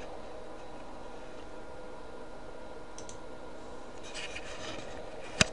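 Computer mouse clicks over a steady hum: a faint click about three seconds in, a short flurry of clicks about four seconds in, and one sharp click near the end.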